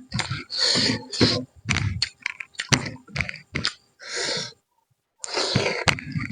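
A person eating rice and chicken curry: chewing and smacking in short irregular bursts with sharp clicks, pausing for about half a second about two-thirds of the way through.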